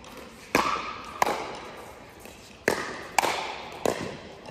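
Pickleball rally: a hard plastic ball popping off paddles and the court surface, five sharp hits at uneven intervals. Each one echoes briefly in the indoor hall.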